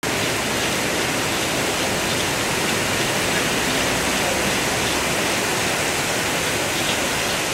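Heavy rain pouring down onto wet pavement, a steady, even hiss.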